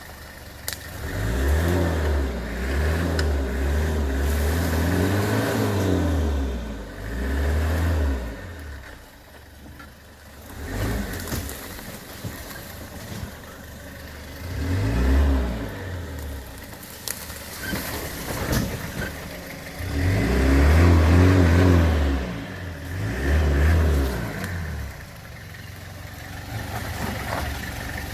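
Toyota Hilux LN106 diesel engine revving up and easing off again and again, in several surges with quieter lulls between them, as the truck is driven hard off-road. A few sharp knocks sound between the surges.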